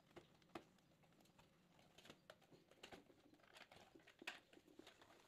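Faint scattered clicks and light taps of hard plastic as a part is fitted to the underside of a WPL D12 RC truck and the truck is handled, the loudest tap about four seconds in.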